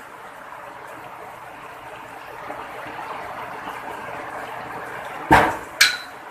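Steady hiss of heavy rain, growing a little louder partway through. Two sharp knocks come close together near the end.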